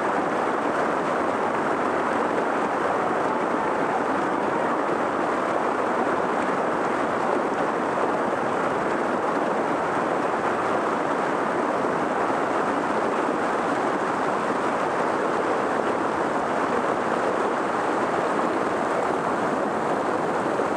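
Creek water rushing steadily over rocks and small cascades, an even unbroken rush.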